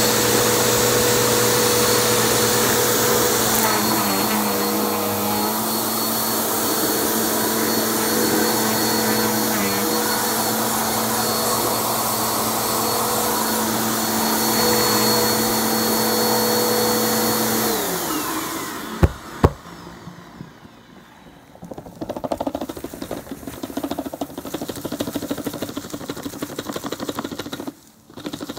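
Vacuum cleaner motor running steadily, then switched off about two-thirds of the way through, its hum falling in pitch as it winds down, followed by two sharp clicks. After that, light crinkly rustling of torn tissue paper scraps.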